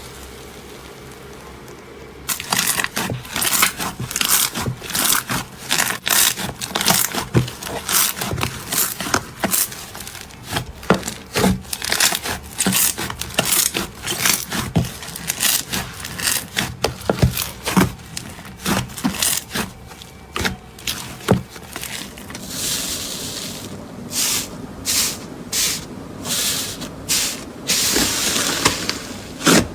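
Slime being squeezed and pressed by hand, giving dense crackling and popping clicks. It opens with a couple of seconds of faint hiss, and there is a brief softer squishy stretch past the middle before the crackling resumes.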